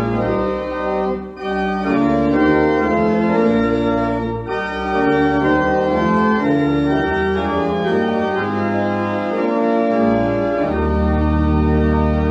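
Church pipe organ playing slow, sustained chords over low bass notes; about eleven seconds in, a deep bass note enters strongly and is held.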